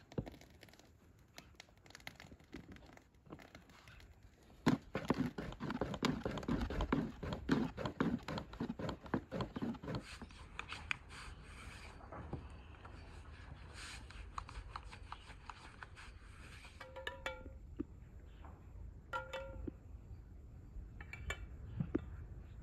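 Dough-rolling sounds: a long wooden rolling pin knocking and rolling over a thin sheet of dough on a wooden board, a busy run of clicks and knocks. Two short bird calls come in the second half.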